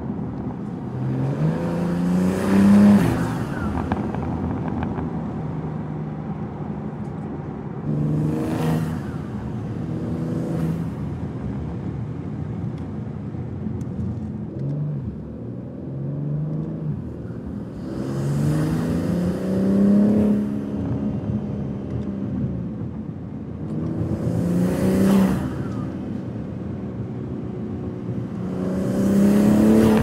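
BMW G80 M3's S58 twin-turbo straight-six breathing through a Fi Exhaust valvetronic catback with its valves open, heard from inside the cabin under light acceleration. The engine note rises several times, and each rise is cut off by a short burst of noise before the pitch drops back.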